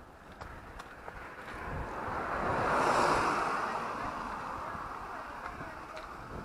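A road vehicle passing close by, its tyre and engine noise swelling to a peak about three seconds in and then slowly fading away. A few faint footstep clicks on the pavement.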